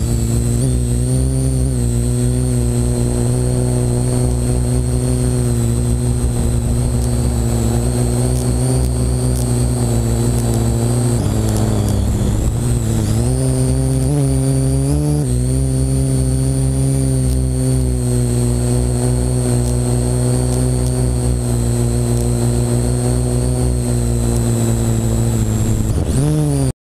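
Parrot AR.Drone quadcopter's four electric motors and propellers buzzing with a high whine, close up from the GoPro it carries. The pitch sags and wavers a few times in the middle and again near the end as the motor speeds change.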